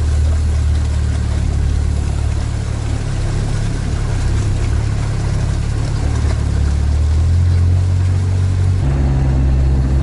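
Sherp all-terrain vehicle's diesel engine running steadily as it drives, a loud low drone; its note shifts abruptly near the end.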